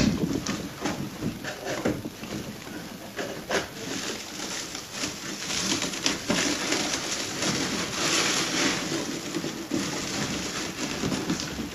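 Crumpled brown packing paper rustling and crinkling as it is pulled out of a cardboard shipping box, with the box's cardboard flaps being opened near the start.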